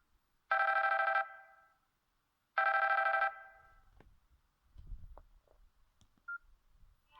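Samsung GT-2222 mobile phone ringing: two short electronic rings about two seconds apart, each with a brief fading tail, then a short beep near the end.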